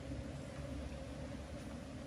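Steady light rain on the pond and vegetation, with a low, fluctuating wind rumble on the microphone.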